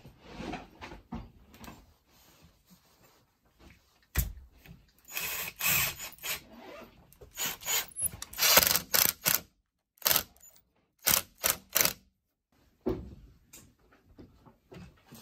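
Cordless drill driving screws into a door's deadbolt latch in a run of short bursts, after a single knock about four seconds in, with small clicks and knocks of lock hardware being handled.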